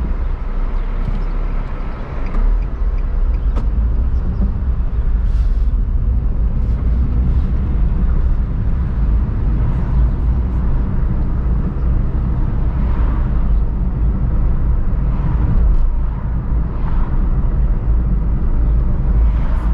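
Steady low road and engine rumble of a car driving along a road, with a few faint swells of passing traffic in the second half.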